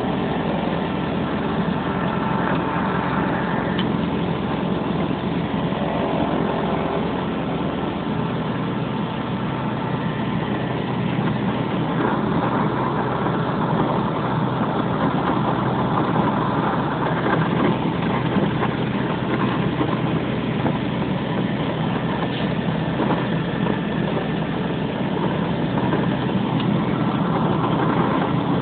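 Light plane's engine running steadily, heard from inside the cabin as the plane taxis on the ground.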